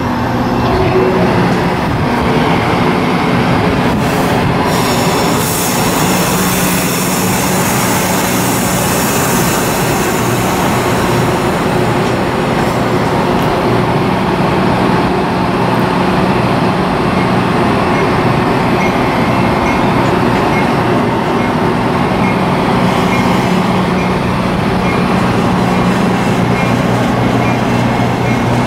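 Metra bilevel gallery passenger cars rolling past at close range: a steady rumble of steel wheels on the rails with a low hum underneath. A high hissing squeal from the wheels comes in about four seconds in and fades away by about twelve seconds.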